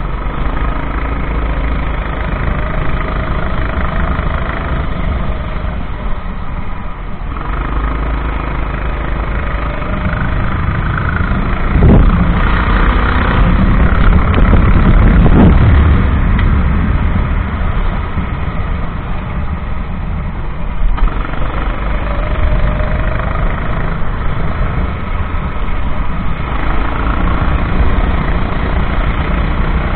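Kart engine running at racing speed, its pitch gliding up and down, under a loud steady rushing noise. There is a louder stretch about halfway through, with two sharp knocks.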